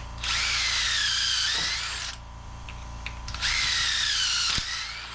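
Drill boring pocket holes through a Kreg pocket-hole jig: two runs of about two seconds each, the motor's whine dipping in pitch as the bit bites into the wood and rising again as it eases off.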